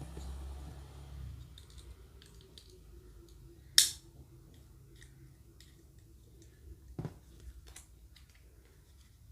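Small plastic parts being handled: scattered light clicks and taps, with one sharp snap about four seconds in and another click about seven seconds in.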